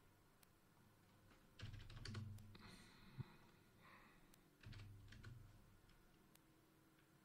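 Faint computer keyboard typing in two short bursts of keystrokes, with a single sharper click between them.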